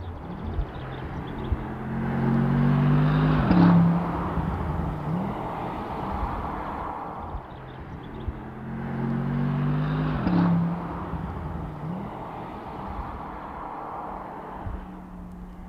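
Bentley Continental V8 engine revving up twice, each time climbing in pitch for a couple of seconds and then dropping off sharply, followed by a short blip of the throttle.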